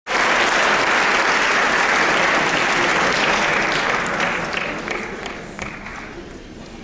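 Audience applauding in a hall, fading away after about four seconds into a few last scattered claps.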